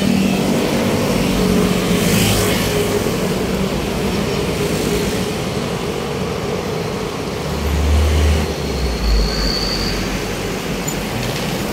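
Busy city road traffic: a steady wash of passing vehicles and engine hum, with a louder low engine rumble about eight seconds in as a heavy vehicle goes by.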